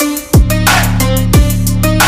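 Electronic music with a heavy beat: a deep bass hit that drops in pitch lands twice, about a second apart, over sustained bass notes and crisp hi-hat ticks.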